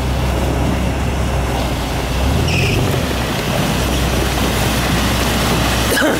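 Toyota 22RE four-cylinder engine in a solid-axle-swapped 4x4 running under load as it crawls over rocks through a shallow icy creek, with a rush of spinning tyres and splashing water.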